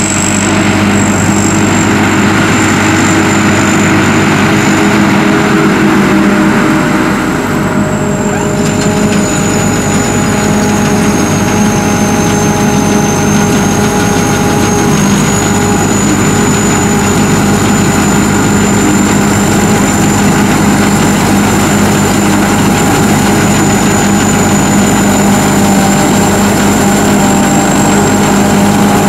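SAKPATTANA SS-200 mini combine harvester running steadily, an engine hum under a thin high whine that wavers slightly in pitch.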